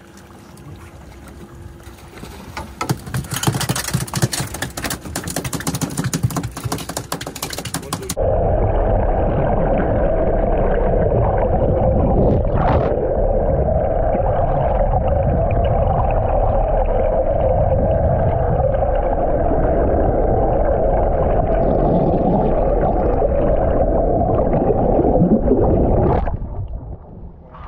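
About eight seconds of wind and water noise in the open air. Then the sound switches suddenly to the muffled, dull rush of water heard through a submerged action camera, with a steady drone underneath, while a hooked albacore tuna is towed past. Near the end it fades away.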